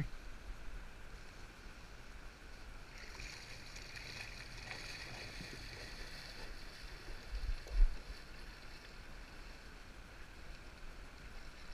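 River water flowing, a steady rushing hiss that turns brighter for a few seconds in the middle, with a dull low bump about two-thirds of the way through.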